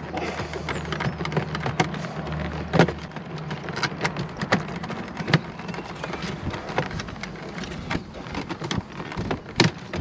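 Plastic trim tool prying the headlight switch unit out of the dashboard trim. It makes an irregular string of sharp plastic clicks, creaks and scrapes as the switch's posts are worked free of their rubbery grommets, over a steady low hum.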